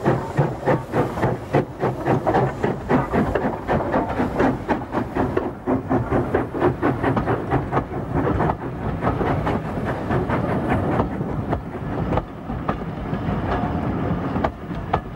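LNWR 0-6-2T coal tank steam locomotive working a train past, its exhaust beating in a steady rhythm, followed by the coaches rolling by with their wheels clicking over the rail joints. The clicking grows quieter near the end.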